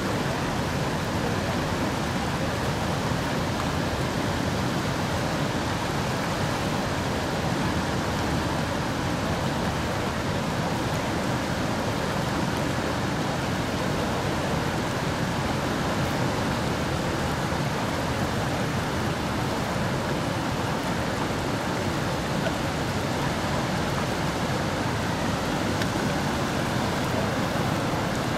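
Fast, shallow river water rushing over a riffle, a steady unbroken wash of noise.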